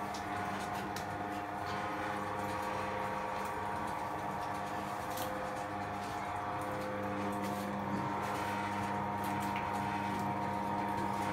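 Steady mechanical hum of a running motor, holding one pitch throughout, with a few light clicks and knocks over it.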